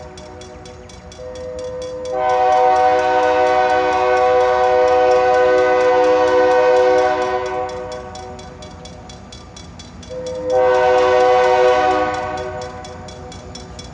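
Diesel locomotive air horn sounding a chord of several steady tones: one long blast starting about two seconds in and lasting about five seconds, then a shorter blast of about two seconds near the ten-second mark, over the steady noise of the passing train.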